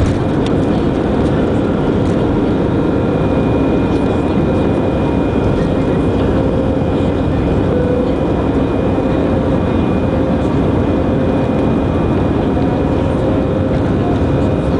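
Airbus A319 jet engines at takeoff thrust, heard from inside the cabin: a steady loud rush with a couple of steady whining tones over it, through the takeoff and first climb.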